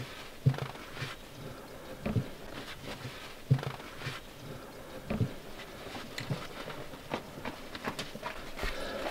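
Irregular metal clicks and knocks of a wrench working an oil drain plug under a pickup truck, with a few louder knocks spread through.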